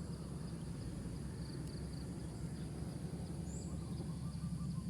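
Outdoor ambience: a steady low rumble under a thin, steady high-pitched drone, typical of insects, with a few short high chirps, one around the middle and another a little later.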